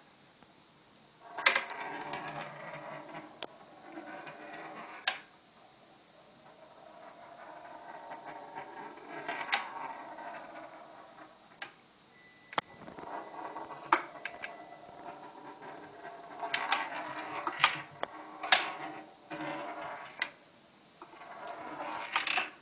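A marble rolling around the bottom of a wooden tray as a cat bats it. It comes in rolling runs of a few seconds, broken by sharp clicks as it knocks against the wooden sides, with short quieter pauses between runs.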